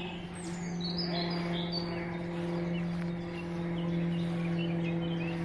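Outdoor birds chirping and singing in short high calls, busiest in the first couple of seconds, over a steady low hum.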